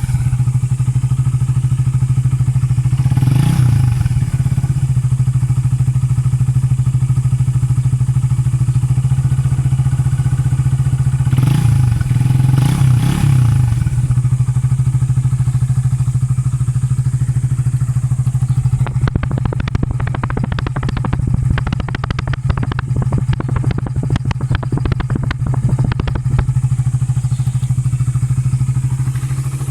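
Suzuki Raider 150 single-cylinder four-stroke motorcycle engine with a carburettor, running through an Uma Racing aftermarket power pipe exhaust and idling steadily. Short throttle blips come about three and a half seconds in and again around twelve seconds. Between about nineteen and twenty-seven seconds a fast stream of ticks and crackles rides over the idle.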